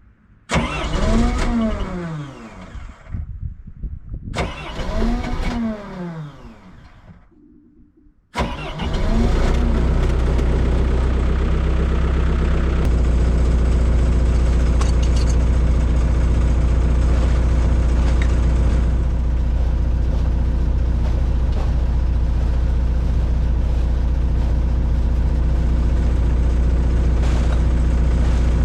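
Excavator diesel engine being started: the starter cranks twice with a whine that rises and falls, and the engine does not catch. On a third crank about eight seconds in it fires and settles into a loud, steady, low idle.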